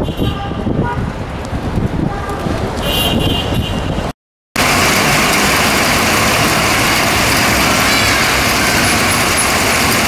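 Road traffic rumbling past a moving car. About four seconds in it cuts off briefly, then gives way to the louder, steady hiss of heavy rain falling on paving.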